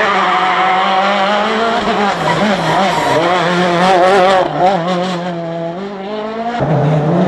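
Citroën DS3 WRC rally car's turbocharged 1.6-litre four-cylinder engine working through a tarmac corner, its pitch wavering with quick throttle changes and peaking as it pulls away. Near the end the sound switches abruptly to another rally car's engine climbing in pitch.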